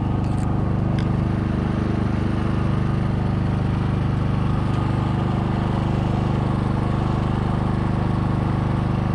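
Small engine of the bowfishing boat's onboard generator running steadily at a constant speed. There are a couple of faint clicks about a second in.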